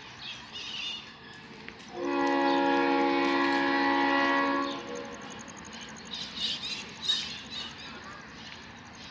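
Diesel locomotive air horn on an arriving passenger train, sounding one long blast of several tones together for about two and a half seconds, starting about two seconds in.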